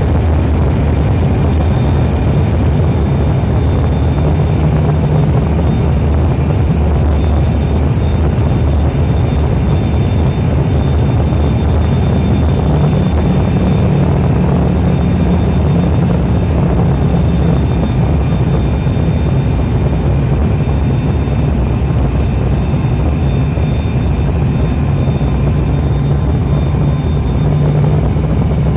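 Cabin noise of an ATR 72-500 turboprop airliner in flight: the steady drone of its Pratt & Whitney PW127 engines and propellers, a strong low hum with a faint high whine above it.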